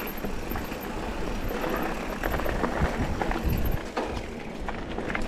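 Mountain bike running fast down a dirt trail: tyres rolling over rough ground and the bike rattling with many short knocks, with wind rumbling on the action camera's microphone.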